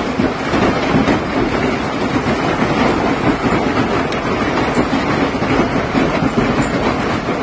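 Heavy hail pelting down in a dense, steady clatter of many small impacts.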